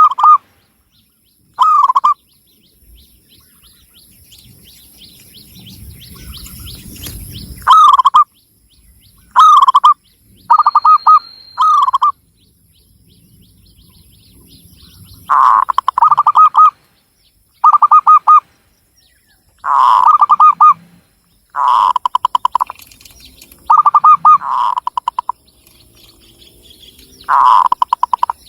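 Zebra dove (Javanese perkutut) cooing: about a dozen loud phrases, each a quick run of pulsed coo notes on much the same pitch. There is a pause of several seconds near the start, then the phrases come every second or two.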